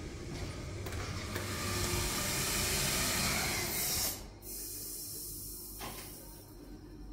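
Hydraulic lift power unit hissing steadily, the sound of oil flowing through the unit, which cuts off abruptly about four seconds in. A fainter low hum and a single click follow.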